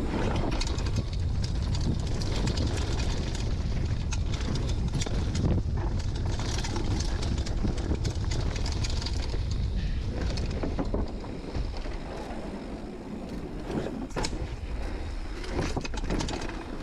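Wind buffeting the microphone of a mountain bike rider's POV camera while the downhill bike rolls fast over a dirt trail, with tyre noise and scattered clicks and rattles from the bike. It gets quieter about eleven seconds in.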